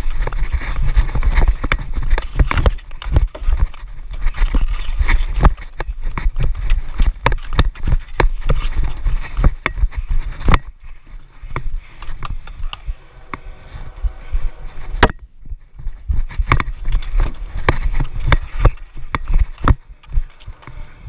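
Footsteps and stick clatter of a player running on plastic dek hockey tiles: a dense, uneven run of sharp clicks and knocks. Wind rumbles on the body-worn action camera, easing off in the middle.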